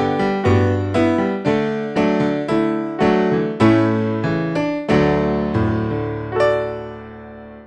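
Piano playing a run of chords, struck about twice a second, with a last chord held and fading near the end before it cuts off.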